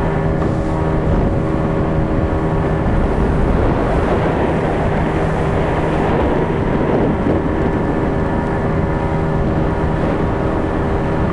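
Fire boat's engine running steadily under way: a constant pitched drone with a rushing noise over it that swells for a few seconds in the middle.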